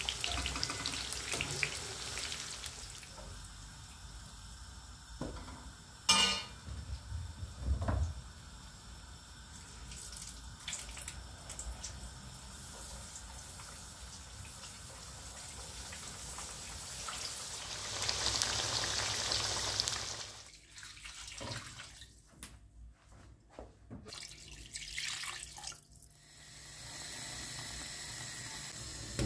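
Water running from a kitchen tap into a sink, with a few knocks and clatters: one sharp click about six seconds in and another knock soon after. Later the sound breaks into short gaps.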